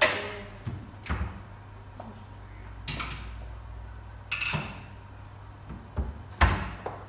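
Kitchen wall-cupboard doors knocking shut and crockery clattering as a bowl is taken down and set on the counter: about six sharp knocks, the loudest at the very start and about six and a half seconds in.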